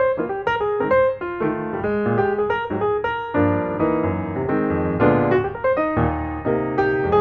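Background piano music: a steady run of separate notes over lower bass notes.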